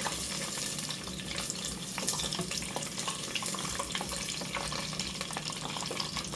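Chicken wings deep-frying in hot oil, a steady sizzle with many small crackles.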